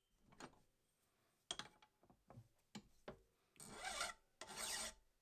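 Mill bastard file pushed by hand across the cut end of a steel DOM tube held in a vise, squaring the end. A few short, light strokes come first, then two longer, louder strokes near the end.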